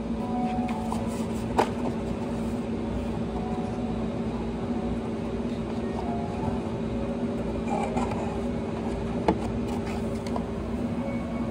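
A steady machine hum with a constant low pitched drone, broken by a few sharp clicks, one about one and a half seconds in and one near the end.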